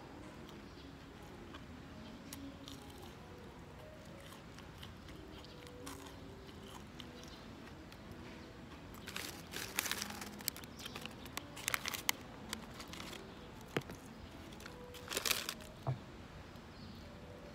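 A paper food bag crinkling and rustling in bursts through the second half as an onion ring is pulled out of its paper sleeve. Before that, only quiet chewing of fries.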